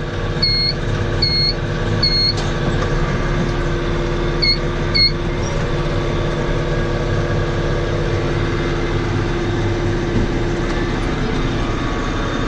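Vehicle engine running steadily, with a high electronic beep repeating a little more than once a second for the first two seconds, then twice more about five seconds in.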